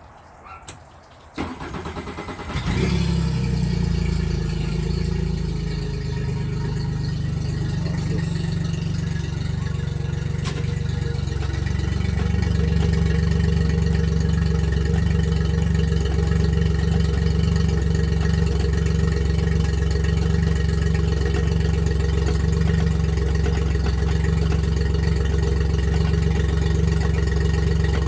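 Yamaha four-stroke outboard motor being started, catching about two and a half seconds in and then running steadily. A single sharp click comes about ten seconds in, and the engine runs a little louder from about twelve seconds on.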